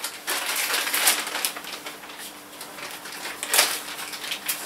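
Plastic carrier bag rustling while small plastic bicycle-lamp parts and brackets are handled and clicked together, with a sharper clack about three and a half seconds in.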